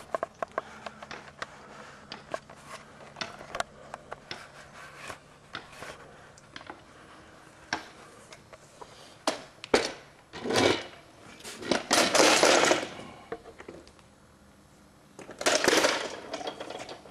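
Scattered light clicks and knocks with three short bursts of rustling noise, two in the middle and one near the end: handling noise as things are moved and touched in a workshop.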